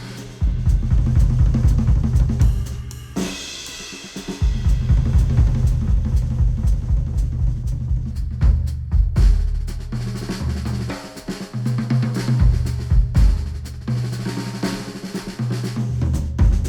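Instrumental music led by a drum kit, with kick drum, snare and hi-hat over a deep stepping bass line, played back through Sennheiser open-back headphones and recorded by microphones at the earcups. The beat drops out briefly a few seconds in, then comes back.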